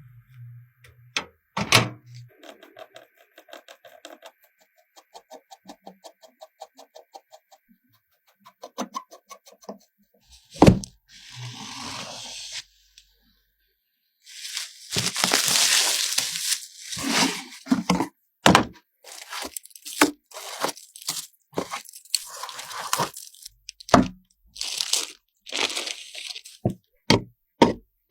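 A run of clicks, knocks and thunks from handling PC components, with a stretch of fast light ticking and bursts of rustling, like plastic or packaging being handled.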